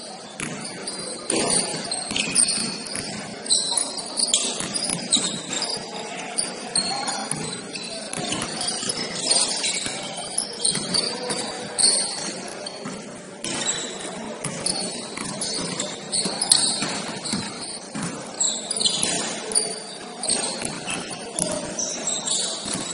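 Basketball game sounds on an indoor court: many short, high sneaker squeaks on the hardwood, with the ball bouncing.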